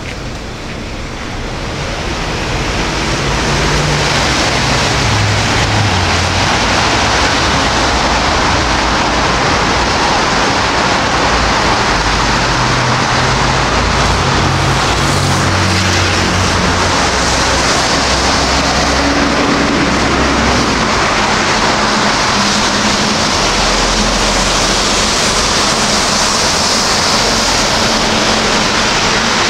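Dense road traffic: a steady rush of tyre hiss with engine hum underneath, swelling over the first few seconds and then holding loud and even.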